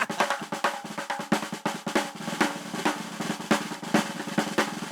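Snare drum roll of rapid, continuous strokes, a fanfare-style build-up that signals a guest's entrance.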